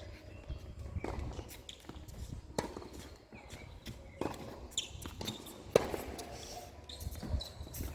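Tennis rally: sharp racquet-on-ball hits about every second and a half, with ball bounces and shoe steps on the court in between. The loudest hit comes about three-quarters of the way through.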